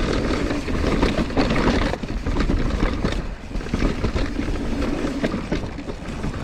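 Mountain bike riding down a dirt trail: wind rumbling on the microphone, tyres running over dirt and rocks, and the bike clattering with many short knocks and rattles over bumps.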